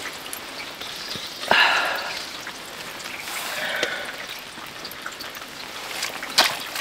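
Steady rain pattering, with a louder rustle about a second and a half in and a few sharp knocks near the end as plastic drain-pipe fittings are handled.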